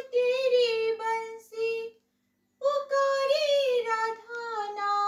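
A woman singing a Hindi devotional song unaccompanied, in two drawn-out phrases with a short break between them. The second phrase ends on a long held note that falls in pitch.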